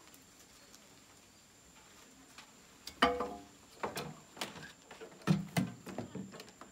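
Knocks and clatter of a small green lawn mower being carried and set down on grass. A string of sharp, separate knocks starts about three seconds in, the first with a brief ringing.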